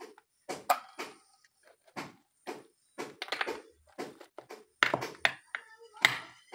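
A hammer striking giant land snail shells on a plastic sheet over concrete, cracking them open: a series of sharp knocks and cracks at irregular intervals, some in quick clusters.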